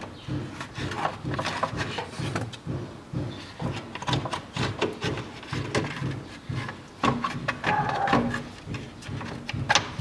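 Plastic radiator fan shroud being handled and seated against the radiator: irregular clicks, knocks and rubbing of hard plastic on plastic and metal.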